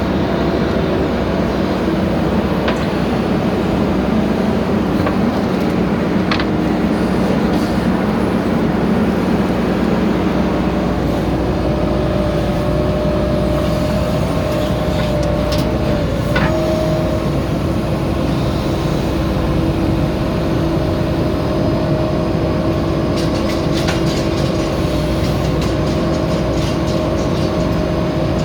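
JCB backhoe loader's diesel engine running steadily under work, its pitch shifting about halfway through, with a few light clicks and knocks.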